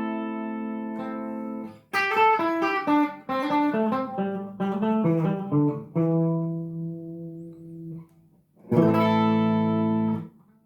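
Clean electric guitar (Cort Zenox Z42) through a chorus pedal into a small solid-state amp. A ringing chord stops after about two seconds, then comes a run of picked single notes and a held low note. Another chord is struck near the end and cut off suddenly.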